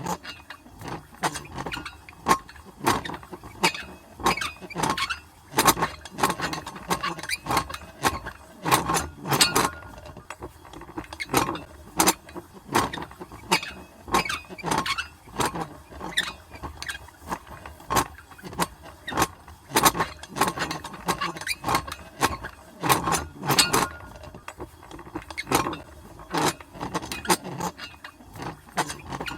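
Old metal crank handwheel being turned at medium speed: a continuous run of irregular metallic clanks and clicks, about two to three a second, some with a short ring.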